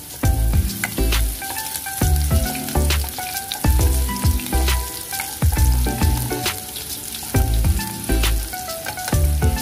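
Diced onion sizzling as it fries in hot oil in a non-stick pot, stirred now and then with a wooden spatula. Background music with repeated bass notes plays over it.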